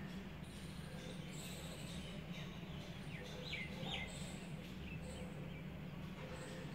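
Faint bird chirps over a steady low hum: short high calls recur every second or so, with two quick falling chirps about midway.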